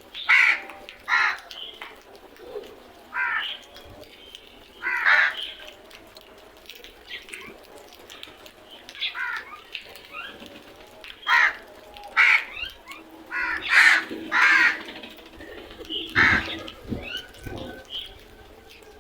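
Crows cawing: about ten loud, harsh caws, singly and in quick pairs, with pauses of a few seconds between them.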